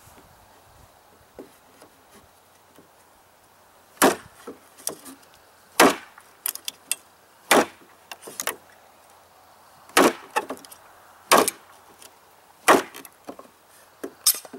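Flat-ground Junglas large knife chopping hard into a knot in a wooden 2x2: six sharp blows about every one and a half to two seconds, starting about four seconds in, with smaller knocks and clicks between them.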